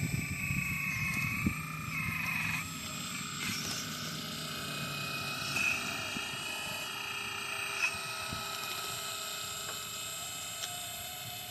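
Radio-controlled mini excavator's small electric motors whining as it works, the pitch and load shifting a few times as different movements start and stop.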